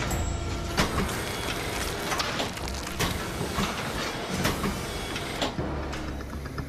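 Mechanical metal mosasaur jaw rig working on a block of ballistics gel: a low machine hum with irregular clicks and clanks of the jaw mechanism.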